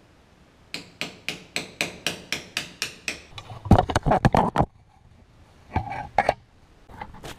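About ten sharp, evenly spaced metallic taps, roughly four a second, from a hand tool working on a motorcycle engine. They are followed by a louder clatter and a few knocks as the camera is picked up and moved.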